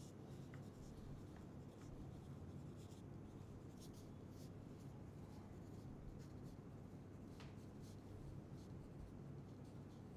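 Pencil scratching on paper as notes are written, in faint, irregular strokes over a steady low hum.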